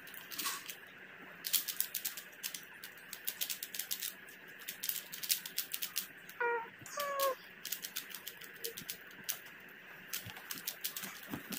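Qiyi Thunderclap V3 M magnetic 3x3 speed cube being twisted by hand: runs of quick plastic clicks as the layers turn, with short pauses between runs.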